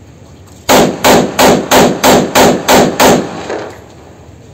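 A full-auto 14-shot .30 bore pistol firing a burst of eight shots, about three a second, each with a short echo.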